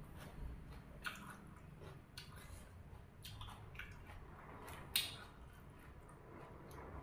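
Mouth sounds of a person eating: wet chewing of vegetables and sticky rice with fish chili dip, broken by several short clicks and snaps, the sharpest about five seconds in.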